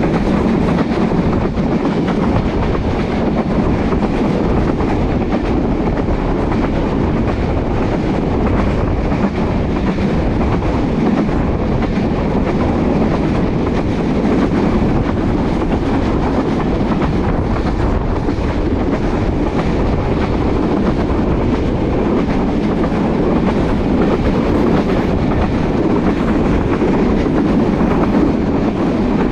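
Chitara Express passenger train running at speed, heard from an open coach window: a steady loud rumble of the coaches' wheels on the rails, with a clatter of the wheels over the track.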